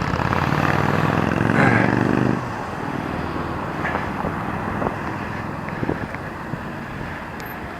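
Motorcycle engine running close by with a steady, even note that stops abruptly about two and a half seconds in, leaving steady street traffic noise with a few faint clicks.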